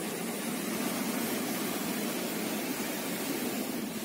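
Hurricane-driven surf breaking and churning against a rocky seawall, giving a steady, unbroken noise of rough water.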